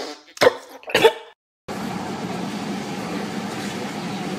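Two short, loud mouth sounds about half a second apart as a cube of jello is sucked into the mouth. After a brief silence, the steady running noise of a bus or train cabin takes over.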